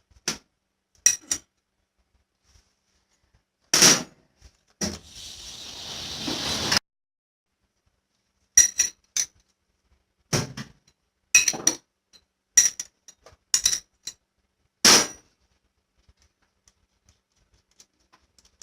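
Metal clinking and tapping, about a dozen short knocks at irregular intervals, as of metal parts or hand tools being handled. About five seconds in, a rough scraping noise grows louder for two seconds, then stops suddenly.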